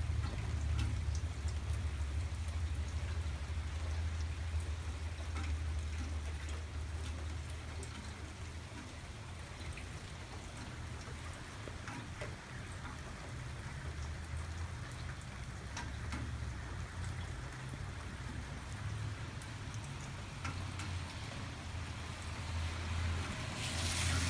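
Steady, moderate rain falling, with many single drops ticking on surfaces close by, over a low steady rumble. A brief louder rush comes near the end.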